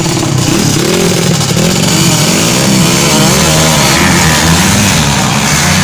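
Trail motorcycle engines revving hard at a drag-race start line, loud, the pitch sweeping up and down over and over as the throttles are blipped and held.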